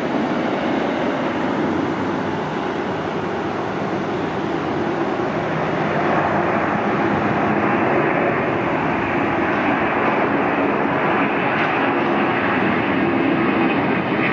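Three jet engines of a McDonnell Douglas MD-11F freighter at takeoff thrust as it rotates and climbs out, a loud steady rushing rumble that grows a little louder about six seconds in.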